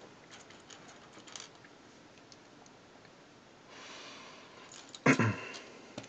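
Light clicking of small plastic LEGO bricks as they are handled and sorted, with a soft breath about four seconds in and a short murmured voice sound near the end.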